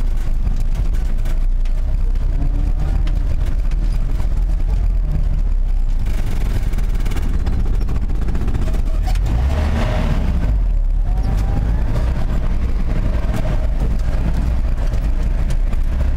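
Car driving: a steady low rumble of engine and road noise, with a short rise in hissing noise about six seconds in and again around ten seconds.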